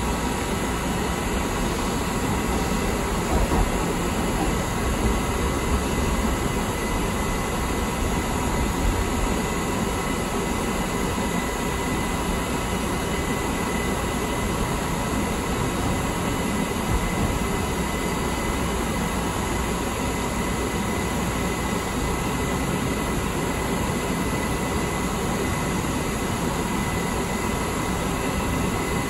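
Light rail car running along the track, heard from inside the car: a steady rumble of wheels on rail with a faint steady high whine.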